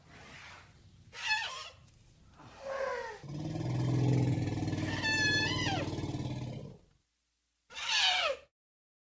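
Elephant roars and growls: two short calls falling in pitch, then a long low growling rumble of about four seconds with a high, falling call over it partway through. After a brief gap there is one more short call falling in pitch.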